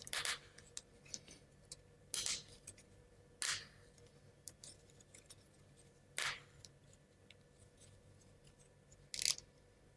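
Laser-cut plywood model parts being pressed together and handled: a few faint, short clicks and scrapes, about five spread a second or more apart.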